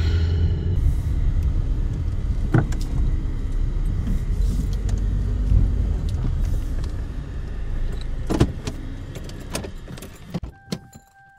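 Car running, heard from inside the cabin: a steady low engine and road rumble with a few sharp clicks and knocks. Near the end the rumble fades and cuts out as the car stops, and a steady high tone starts.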